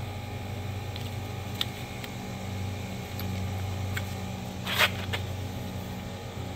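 Brake caliper piston wind-back tool being turned against a rear disc brake caliper piston, screwing it back in to make room for new pads: a few faint clicks and one short metal scrape a little before five seconds in, over a steady low hum.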